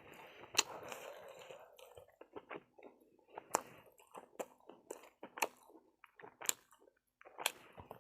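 Close-miked chewing and eating mouth sounds. A soft, steady rustle of chewing for about the first two seconds gives way to scattered sharp, wet smacks and clicks.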